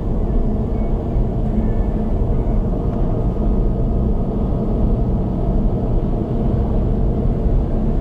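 Car cruising at expressway speed, heard from inside the cabin: a steady low rumble of tyre and road noise with the engine underneath.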